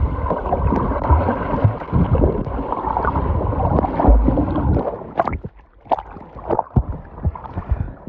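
Swimming-pool water heard underwater through a phone's microphone: a muffled rushing and gurgling of water and bubbles as a swimmer passes close by. About five seconds in it thins out to a few short sharp sounds.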